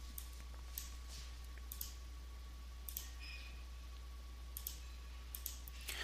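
Scattered light clicks of a computer mouse, about a dozen at uneven intervals, over a faint steady electrical hum.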